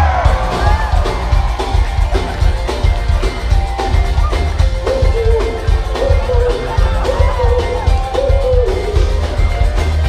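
Live band music heard from the audience floor: a steady, bass-heavy drum beat with a held, wavering melody line over it.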